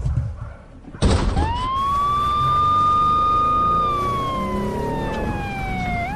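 A few knocks, then a loud crash about a second in, followed by a siren wailing: it rises, holds a high note, falls slowly for about two seconds and rises again near the end.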